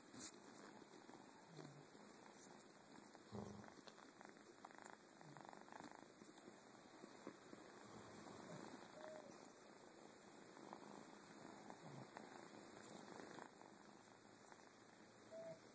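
Kitten purring faintly and steadily.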